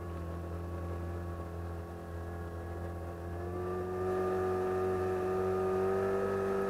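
Outboard motor driving a long wooden river boat upstream against the current through a riffle, running steadily under load. Its pitch rises slightly about three seconds in and it gets a little louder a second later.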